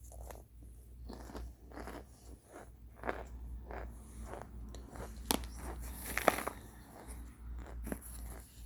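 A person biting and chewing hard, crumbly microwaved chunks close to the microphone: a run of irregular crisp crunches, with the loudest bites about five and six seconds in.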